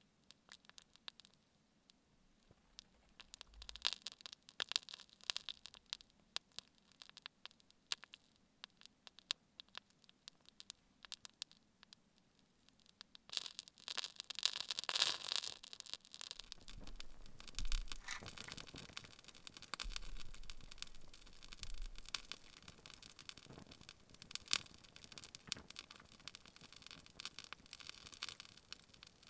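Spruce-sap candle with a birch-bark wick burning, giving off scattered small crackles and pops that turn denser and louder about halfway through.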